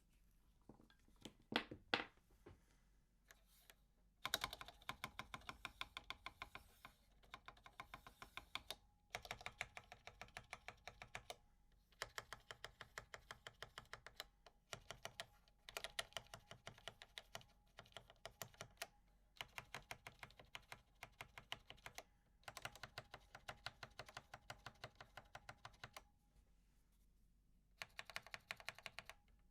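Typing on a vintage Allen Bradley 1784-T50A industrial terminal keyboard with Cherry MX Black linear switches mounted on a steel plate: long runs of fast keystrokes broken by short pauses. Two louder single strokes come about two seconds in, and there is a longer pause shortly before the end.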